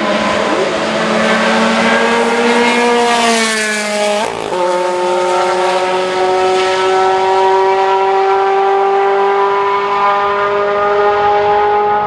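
Ferrari 360 GTC race car's 3.6-litre F131 90° V8 running at high revs. Its pitch falls over the first few seconds, breaks briefly about four seconds in, then holds a steady, slowly rising note as the car pulls away.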